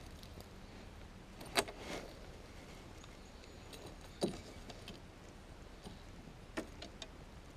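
A few sharp clicks and light knocks of fishing gear being handled in a kayak, the three loudest spaced about two and a half seconds apart, over steady low background noise.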